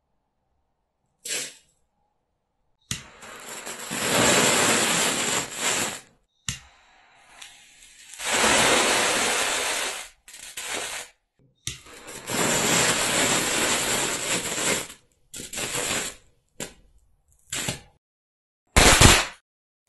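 Homemade pyrotechnic strobe composition burning in a dish: repeated spells of loud hissing and crackling, each lasting one to three seconds, with short quiet gaps between them. A last short loud burst comes shortly before the end.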